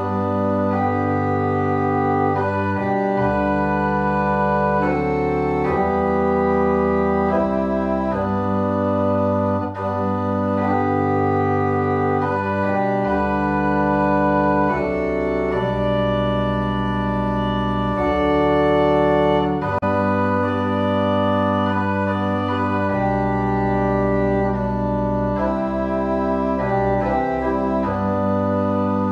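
Organ playing a hymn tune in full sustained chords, moving chord by chord through a verse in slow triple time.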